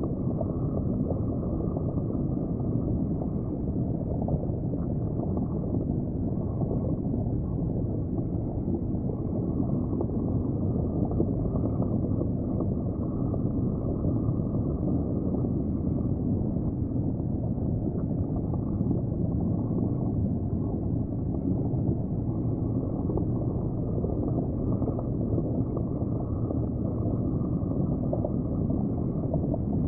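Steady, muffled underwater rumble and gurgle of aquarium tank water, heard from beneath the surface.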